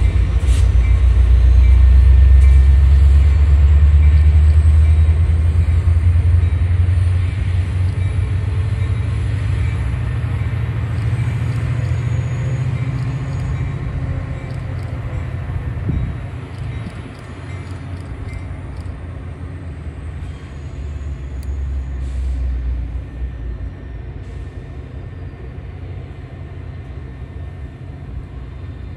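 Metra commuter train's diesel locomotive rumbling as the train moves away, loud at first and fading steadily over the second half.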